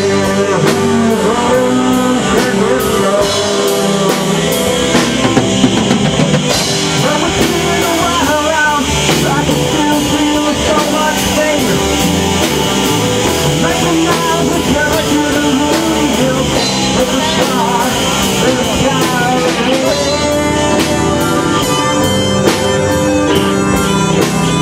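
Loud rock music with guitar and a drum kit keeping a steady beat.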